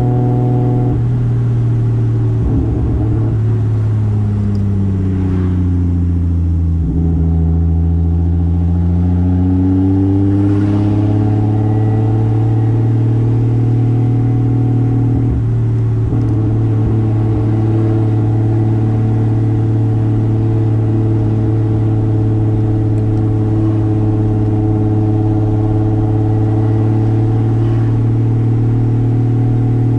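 Single-turbo Toyota 2JZ straight-six in a Soarer under way: the revs fall over the first several seconds, climb again, then hold steady at cruising speed, with a brief break about halfway through.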